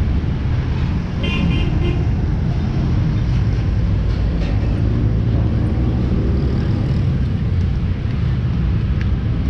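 Steady road traffic rumble, with a short vehicle horn toot about a second in.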